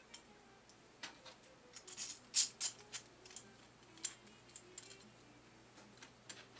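Light clicks and knocks of hard 3D-printed plastic gear pieces being handled and turned over by hand and set on a cutting mat, a scattered run of taps with the loudest cluster a little over two seconds in.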